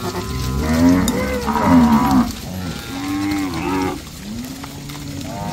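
Several Nelore cattle mooing, long calls from more than one animal overlapping and following one another, with a lower, quieter moo near the end.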